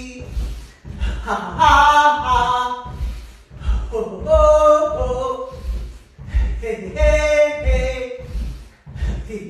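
Wordless vocal chanting in rhythmic phrases, coming every two to three seconds, with held notes that slide in pitch, over a steady low thudding beat.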